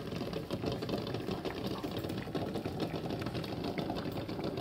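Pot of water at a rolling boil with eggs in it: a dense, steady bubbling and crackling made of many rapid small pops.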